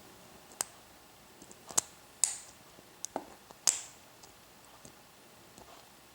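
Lock pick working the pins of an American 1100 series padlock: about six sharp, separate clicks in the first four seconds, then only faint ticks.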